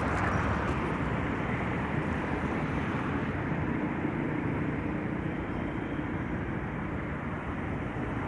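Steady street traffic noise from vehicles running on the road, a continuous low rumbling hiss with a faint engine hum in the middle.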